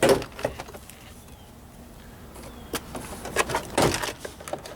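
Plastic Christmas-tree trim clips popping and the car door's interior trim panel knocking and clacking as it is pried away from the door. A sharp pop at the start, then a run of clicks and knocks, the loudest a little under four seconds in.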